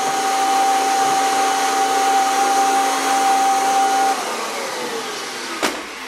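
Upright bagged vacuum cleaner running with its hose attachment, a steady motor whine over rushing air. About four seconds in it is switched off and the whine falls away as the motor winds down. A single sharp knock comes near the end.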